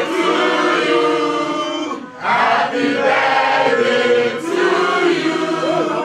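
A group of people singing together in chorus, several voices holding notes, with a short break about two seconds in.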